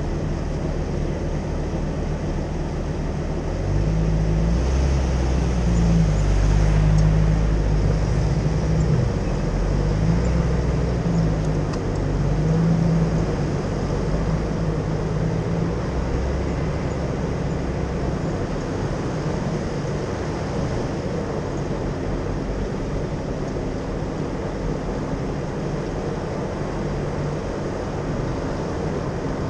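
Jeep engine and tyres driving over a sandy dirt track. The engine pitch steps up and down and runs louder for several seconds starting about four seconds in, then settles to an even, steadier drive.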